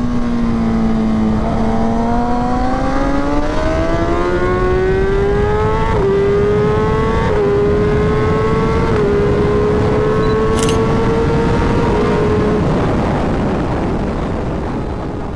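Kawasaki ZX-10R's inline-four engine heard from on the bike under hard acceleration, its pitch rising steadily with three brief dips as it shifts up, about six, seven and nine seconds in, over heavy wind rush. The sound fades out near the end.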